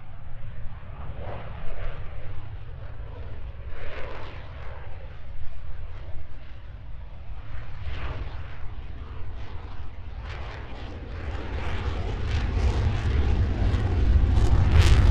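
Fighter jet flying by: a low jet-engine rumble that swells and fades a little at first, then grows steadily louder over the last few seconds as the jet closes in.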